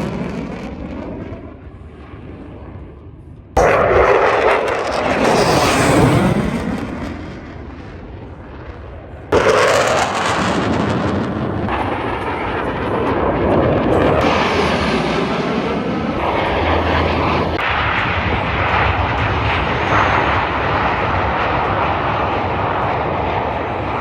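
Airplanes flying past, the engine noise swelling and falling away with sweeping changes in pitch as each one passes, with two abrupt jumps in loudness about four and nine seconds in.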